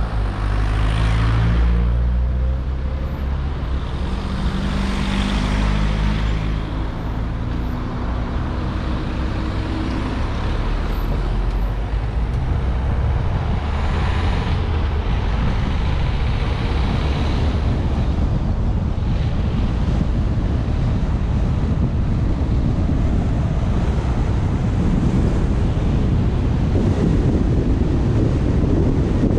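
A car driving through town, heard from inside the car: a low engine drone for the first ten seconds or so, then a steady low rumble of tyres on the road.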